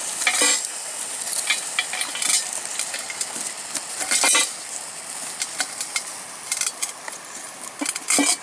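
A stick scraping and pushing lumps of wood charcoal through the ashes of a campfire, with sharp clinks and knocks among a steady crackle from the burning wood.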